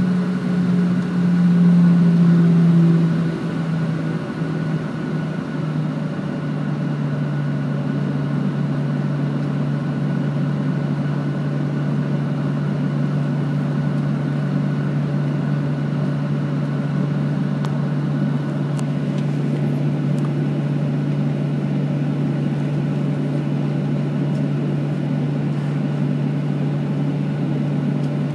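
Boeing 737-800 CFM56-7B engines heard from inside the cabin while taxiing: a steady low hum that drops a little in pitch and loudness a few seconds in as the thrust eases back, then holds steady.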